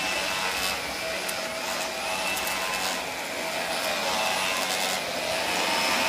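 Dyson Ball upright vacuum cleaner running on artificial grass: a steady motor whine over airflow hiss that swells a little and eases as it is pushed to and fro.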